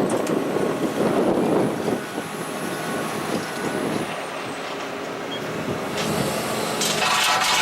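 Excavator-mounted triple-blade stone saw running: a steady heavy machine noise with a faint high whine. Music comes in near the end.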